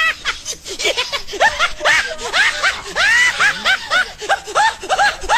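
Rapid, high-pitched laughter in quick short bursts, several a second.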